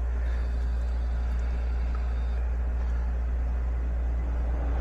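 Steady low mechanical hum from the indoor furnace and air-handler unit running.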